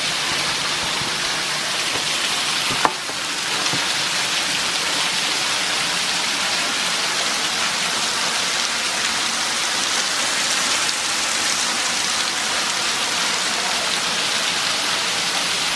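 Waterfall pouring steadily, a loud even rush of falling water, with one short tick about three seconds in.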